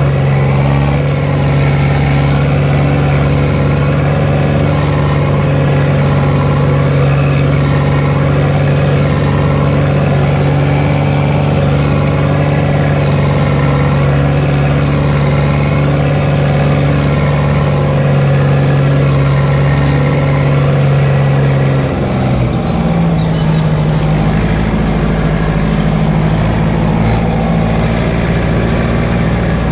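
Fiat 70-66 tractor's four-cylinder diesel engine running steadily, heard from inside the cab while it drives an FCR disc mower. About three-quarters of the way through, the engine note changes to a different pitch.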